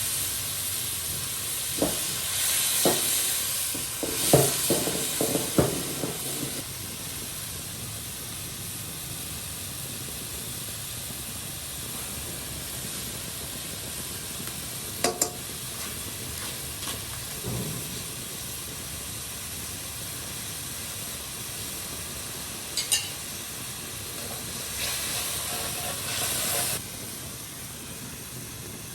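Food sizzling in a hot pan: a steady hiss, with a run of clinks and knocks from a utensil in the first six seconds and a few more later on. The hiss swells briefly and then drops a little near the end.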